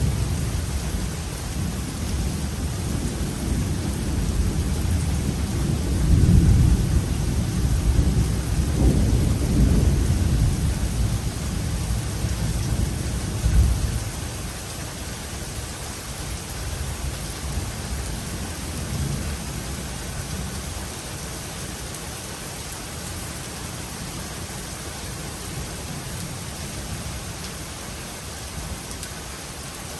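Steady rain with rolling thunder rumbling low and long through the first half, swelling twice and dying away about halfway through, leaving only the steady hiss of rain.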